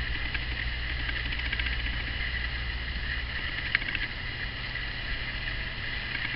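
Steady low hum with a hiss and faint ticking over it, and a single small click a little before four seconds in.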